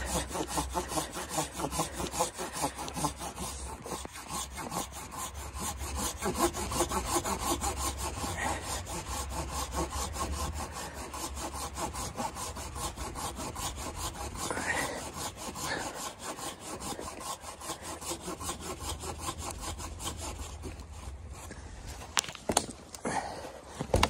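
Folding hand saw cutting through a fallen log in steady, rapid back-and-forth strokes. The sawing stops about three seconds before the end, followed by a few sharp knocks.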